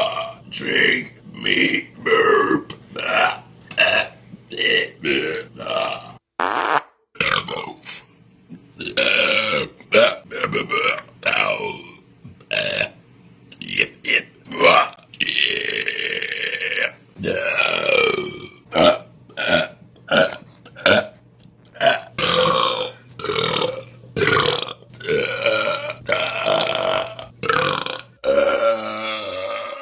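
A man belching over and over in quick succession, about two short burps a second, with a few longer drawn-out belches in the middle.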